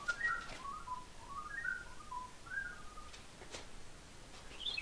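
A person whistling a tune, a string of short notes stepping up and down, with a few light knocks.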